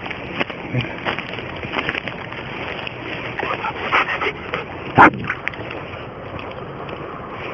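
Rustling and crunching in dry grass and brush, with scattered small clicks, as a dog noses and mouths at a dead coyote. One short, sharp, louder sound comes about five seconds in.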